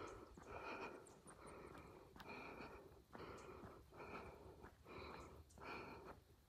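A runner breathing hard and rhythmically, a puff of air about every two-thirds of a second.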